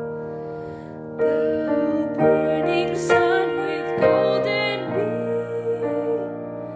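Grand piano playing a slow, gentle hymn arrangement, with a woman's voice singing along. A soft held chord at first, new chords entering about a second in, fading near the end.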